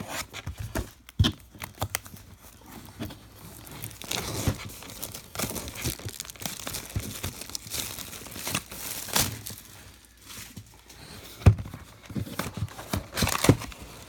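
Plastic wrapping on a trading-card hobby box being torn and crinkled by hand as the box is opened, with a few sharp knocks of the box being handled.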